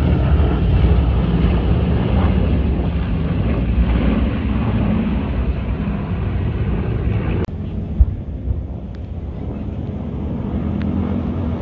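Loud, steady low rumble with wind buffeting the microphone. It drops abruptly about seven and a half seconds in, and a single sharp thump follows.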